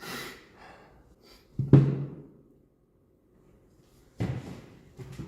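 A man sneezing, one sharp voiced sneeze about two seconds in, the loudest sound. Shorter breathy bursts come at the start and again about four seconds in.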